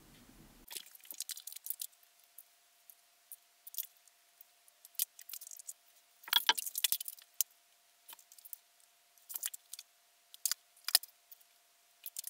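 Measuring tools handled on a window sill: scattered light clicks and clinks of rulers, a tape measure and a pen, busiest about halfway through, over a faint steady hum.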